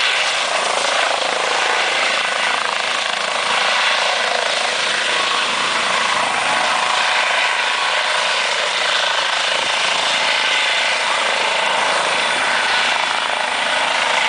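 Eurocopter EC135 twin-turbine helicopter hovering low over the ground and turning on the spot. Its rotor and turbines make a steady, loud rushing drone with a faint whine through it.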